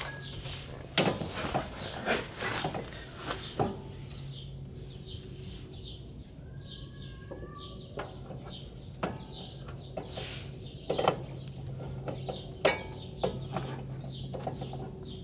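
Irregular metal knocks and clinks as a car's CV-joint drive shaft is worked by hand into the hub and knuckle, over a steady low hum. A bird chirps briefly around the middle.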